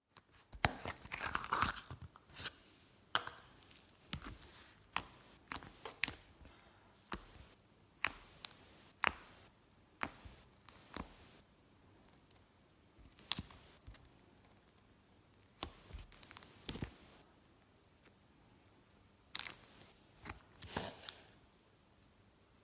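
Slime being squished and pulled by hand, giving irregular sharp sticky pops and crackles, some in quick clusters, with short quiet gaps between them.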